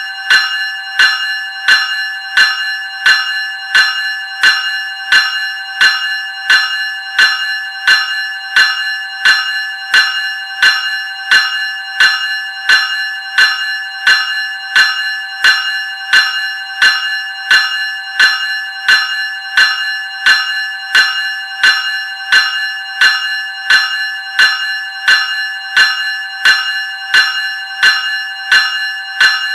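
Graham Electric Bell 373 Series ringing: its gong is struck over and over at a steady, even pace, and each strike rings on with a clear, bright tone.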